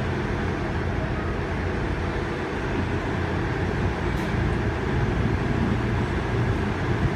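CrossCountry diesel passenger train running at a station platform, its engines giving a steady low hum that grows a little louder about halfway through.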